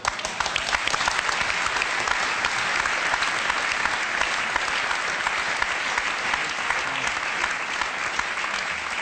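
Studio audience applauding, many hands clapping at once; it breaks out suddenly and keeps up steadily.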